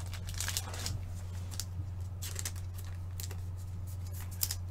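Trading cards being handled: short, light rustles and scrapes of card stock, over a steady low electrical hum.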